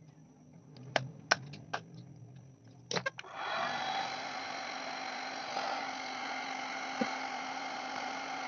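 A couple of sharp clicks, then about three seconds in an electric heat gun switches on and blows steadily with a motor hum, its nozzle held against a blue PVC fitting to heat and soften it.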